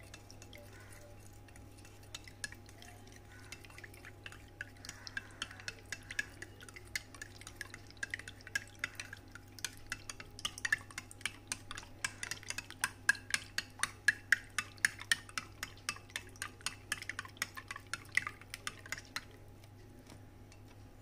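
A spoon stirring a drink in a stemmed glass, clinking against the glass in a quick, uneven run of about three to four clinks a second. The clinks start sparsely, grow more frequent and louder, then stop shortly before the end.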